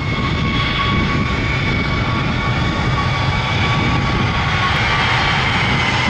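Airbus A321-231's two IAE V2500 turbofan engines running at steady low power: a steady whine over a broad rumble, with no spool-up.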